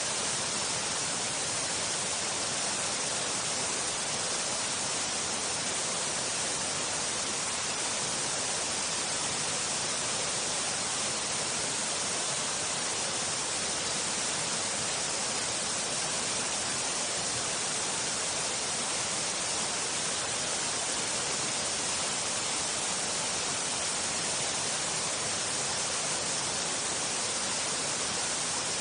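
Waterfall: a steady, unchanging rush of falling water, heaviest in the high hiss.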